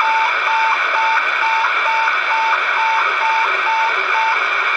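A 27 MHz walkie-talkie's tone signal received over the air: a string of short, even beeps, about two a second, over the loud steady hiss of a super-regenerative receiver. The 2 mW signal is getting through at about 600 m. The beeps stop near the end while the hiss goes on.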